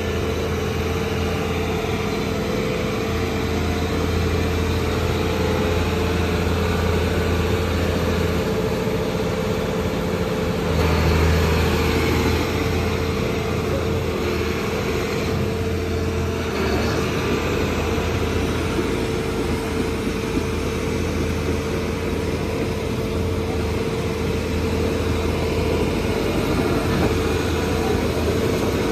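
Volvo EC480LC crawler excavator's diesel engine running steadily, with a steady whine from its hydraulics; it grows briefly louder about eleven seconds in.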